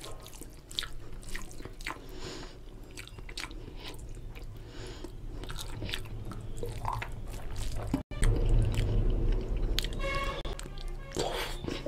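Close-miked wet chewing and lip smacking of a mouthful of oily mutton fat curry and rice, with the squish of fingers mixing the rice into the curry. It comes as a run of quick sharp smacks and clicks, growing louder after about eight seconds.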